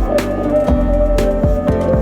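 Background music with a steady beat: a low kick drum about twice a second under sustained melodic notes.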